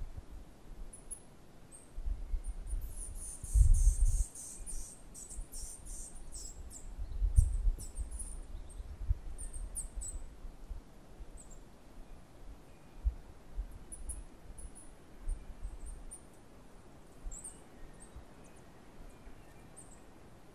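Wind gusting on the microphone as low rumbles, loudest about three to four seconds in and again about seven seconds in, with many short, very high bird chirps, thickest in the first half.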